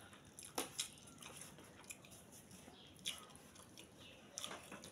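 Faint chewing and soft mouth smacks of a man eating fish stew and amala with his fingers, with a few short clicks about half a second in, around three seconds in and near the end.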